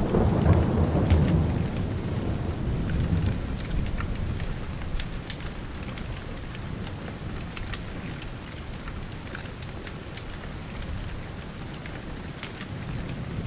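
Steady rain with scattered drip ticks, and a low thunder rumble that fades away over the first few seconds.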